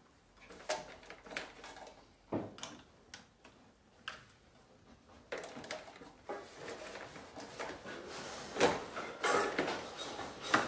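Irregular knocks, clicks and rustling from a German shepherd puppy shifting about on a plastic exercise step while it is being hand-fed, getting busier about halfway through.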